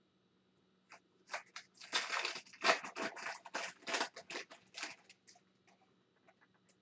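A trading-card foil pack wrapper being torn open and crinkled: a quick run of sharp rustling rips and crackles for about four seconds that tapers off near the end.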